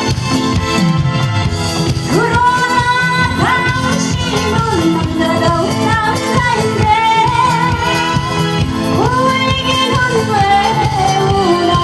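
A solo singer over a pop backing track with a steady beat; the vocal line comes in about two seconds in, with long held notes.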